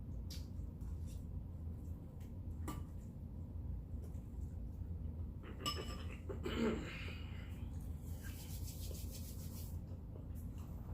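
Close-miked eating sounds: scattered clicks of utensils against a dish and mouth noises of chewing and swallowing, over a steady low hum. A louder mouth sound comes a little past halfway, followed by a soft hiss for about two seconds.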